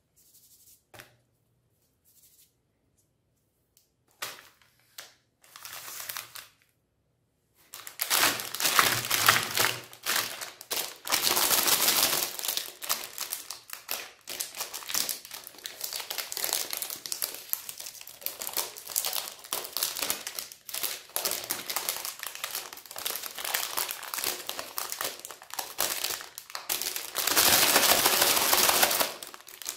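Plastic wrapper of a Magnum ice cream bar crinkling in the hands as it is handled and picked open. A few faint taps at first, then from about eight seconds in a continuous loud crackle that swells again near the end.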